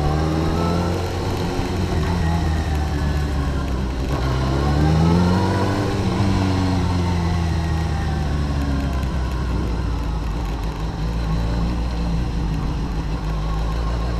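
Suzuki GSX-R 1000 K4's inline-four engine running at low revs while the bike rolls slowly. The revs rise about four seconds in, peak around five seconds, then ease back down.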